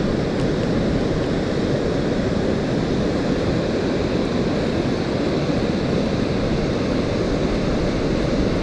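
Steady rush of water pouring over a wide, low river waterfall, an even noise that holds without change.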